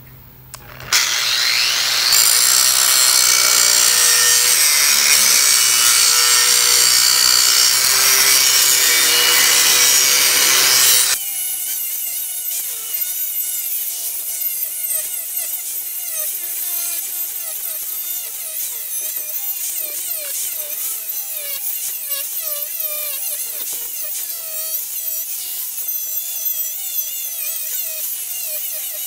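Angle grinder grinding the steel of a railroad rail: a loud, steady grinding starts about a second in. About eleven seconds in it drops abruptly to a quieter grind with a wavering whine.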